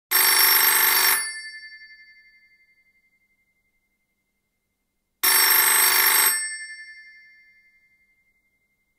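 Telephone bell ringing twice, about five seconds apart: each ring is a rapid jangle about a second long that fades out over the next two seconds.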